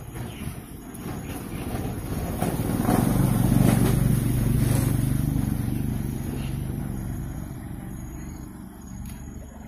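A motor engine passing by: its hum grows louder over the first few seconds, is loudest around the middle, and fades away toward the end.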